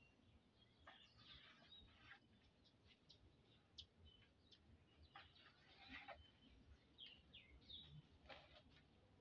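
Near silence, with faint, short bird chirps here and there.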